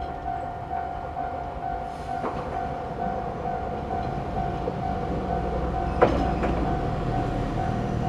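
Japanese level-crossing warning bell ringing in an even, repeating electronic ding, the crossing active. A low rumble builds from about three seconds in, and a sharp knock sounds about six seconds in.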